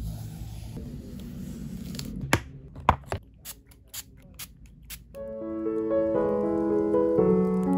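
A low hum with a scatter of sharp clicks and taps, then soft piano music begins about five seconds in.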